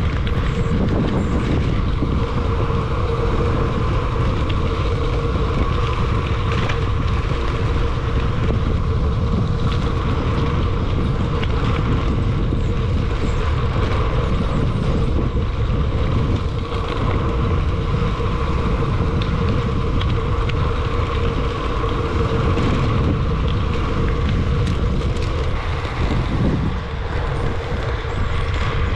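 Mountain bike ridden fast downhill on a road: wind rushing over the microphone, with a steady hum from the tyres rolling at speed.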